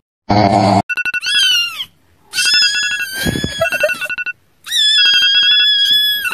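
Phone alarm beeping in quick repeated bursts. Over it come a short grunt near the start, a falling meow, and then two long, wavering kitten cries.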